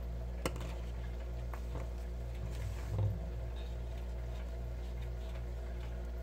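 Steady low background hum with a faint, regular pulsing under it, and a single light click about half a second in.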